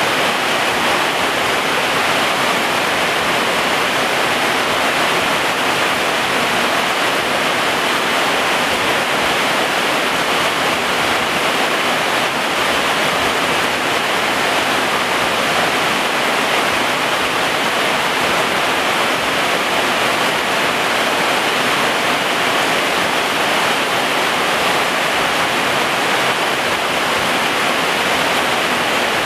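Heavy rain falling steadily: a dense, even hiss that does not let up.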